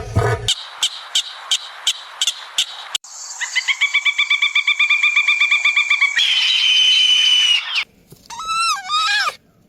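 A run of separate animal calls, cut one after another. First come evenly spaced high chirps, about three a second. Then a fast pitched trill for about three seconds, then a long steady high whistle, and near the end a few swooping calls.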